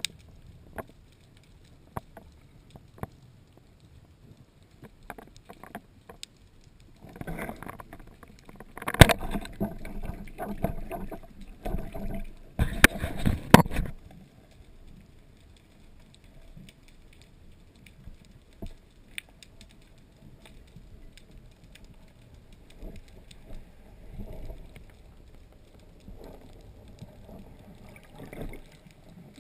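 Underwater water noise from a spearfishing dive in surge: faint scattered clicks and crackle throughout. From about 7 to 14 seconds in there is a loud stretch of rushing, churning water with several sharp knocks, then quieter swells of water noise.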